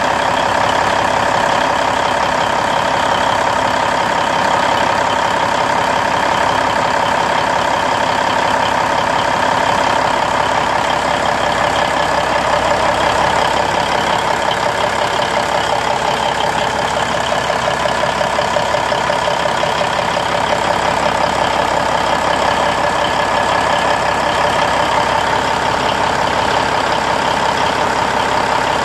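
Cummins N14 inline-six diesel, freshly in-frame overhauled, idling steadily at an even speed.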